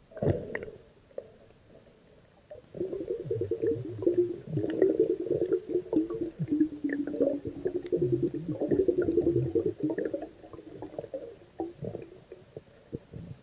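Muffled underwater noise picked up by a submerged camera: a low, dense crackling rumble of water moving around the camera, swelling about three seconds in and fading near the end.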